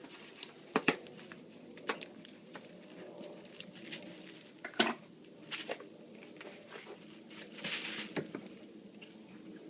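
Packing materials being handled: scattered sharp taps and clicks with crinkling, and a longer rustle about three-quarters of the way through.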